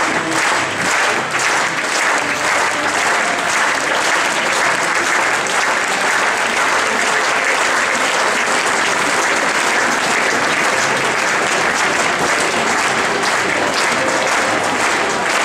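A large audience applauding, a dense and even mass of clapping that holds steady throughout.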